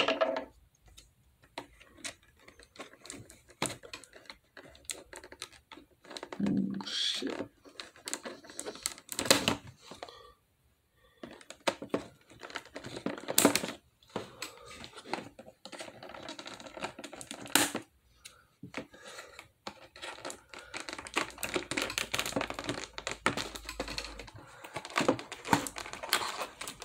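Scissors snipping at an action figure's plastic and cardboard window-box packaging, with handling rustles: an irregular run of sharp clicks and snips separated by short pauses.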